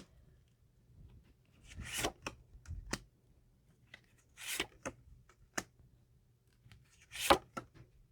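Tarot cards being handled: a series of short swishes as cards are slid, drawn and laid out, the loudest a little after seven seconds in.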